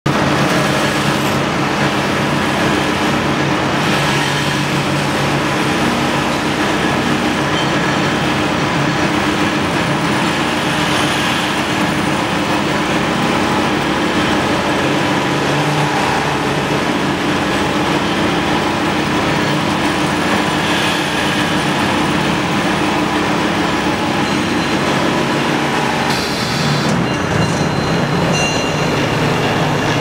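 Automatic knife grinding machine running, its row of polishing wheels working blades clamped along a rail, with a loud, steady mechanical noise and hum. Near the end the pitch of the hum shifts and a faint high whine comes in.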